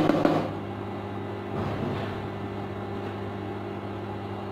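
Induction cooktop running with a steady electrical hum and fan noise under a pot of simmering curry. A wooden spatula scrapes and knocks in the steel pot for about half a second at the start, and there is a softer rustle about two seconds in.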